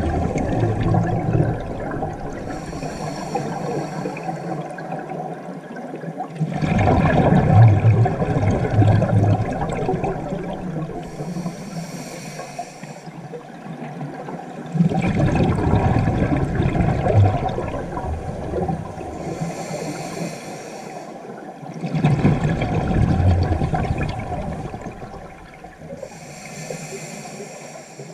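Scuba diver breathing through a regulator underwater: a short hissing inhale through the demand valve, then a longer bubbling rumble of exhaled air, repeating about every seven to eight seconds, four breaths in all.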